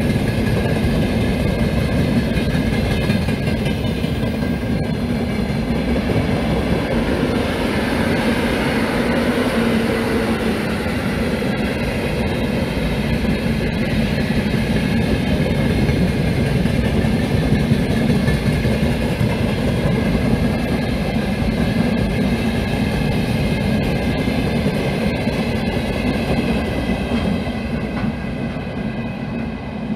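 Broad-gauge freight train of open wagons rolling past, a steady rumble of wheels on rail that fades near the end as the last wagons go by.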